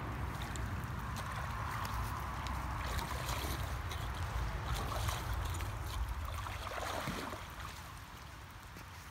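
Lake water sloshing and splashing around a person moving chest-deep through it, over a low rumble. It grows quieter about seven seconds in.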